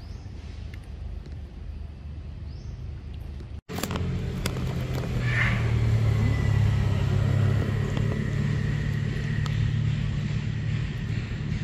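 A low, steady motor-like rumble. It drops out for an instant about three and a half seconds in and comes back louder.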